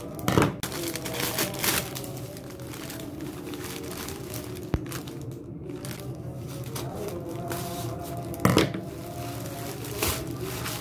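Plastic courier mailer bag crinkling and rustling as it is handled and cut open with scissors, with a few loud crinkles, the strongest just after the start and about three-quarters of the way through, and one sharp click near the middle. Soft background music plays underneath.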